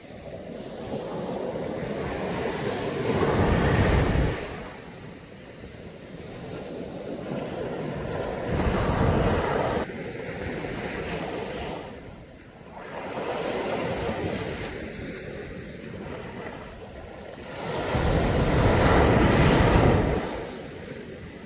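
Caribbean Sea waves breaking and washing up a beach, in surges that swell and fade every few seconds, the loudest near the end.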